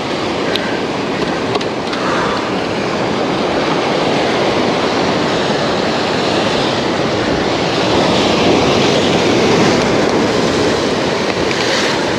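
Waves breaking and washing against the boulders of a rock breakwater: a steady, loud rush of surf.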